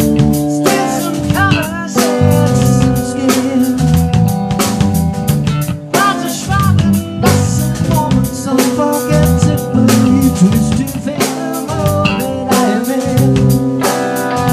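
Rock band playing a song: drum kit keeping a steady beat under bass and electric guitar, with gliding lead notes.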